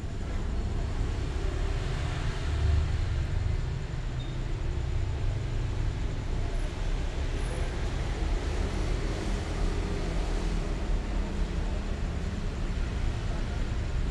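Steady low rumble of background noise, with no clear separate events.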